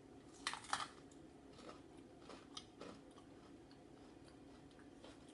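Faint crunching and chewing of a bite of pepper topped with cream cheese and crushed Takis: a cluster of crisp crunches about half a second in, then a few scattered softer crunches that die away.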